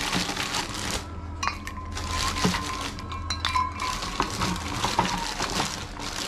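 Ice cubes clinking and knocking against a glass jug: a run of sharp, irregular clinks as the ice goes in and settles.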